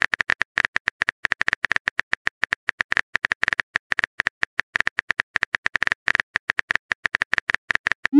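Rapid, irregular phone-keyboard typing clicks, a texting app's typing sound effect, about eight to ten taps a second. A rising swoosh starts right at the end as the message sends.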